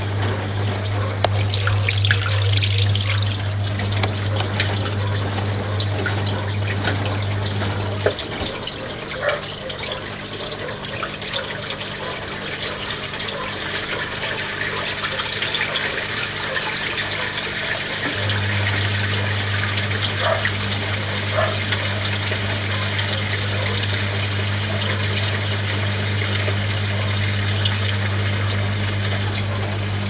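Whirlpool front-loading washing machine on a rinse cycle: water sloshing and splashing in the turning drum as a blanket tumbles. A steady low hum from the machine stops about eight seconds in and comes back after about eighteen seconds.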